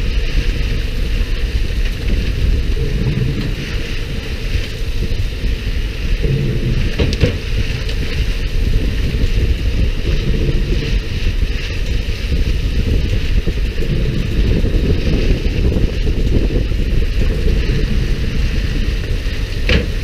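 Fishing boat's engine rumbling steadily, with water splashing and hissing along the hull and wind buffeting the microphone. A couple of sharp knocks, about seven seconds in and at the very end.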